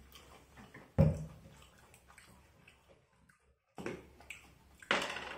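A bottle of sauce being handled: shaken so the sauce sloshes, knocked down on the table about a second in, then its cap worked open with a sharp click near the end.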